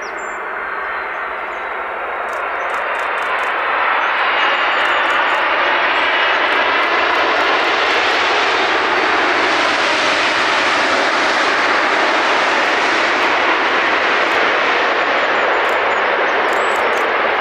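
Large jet airliner's engines passing close, the roar building over the first few seconds and then holding loud and steady.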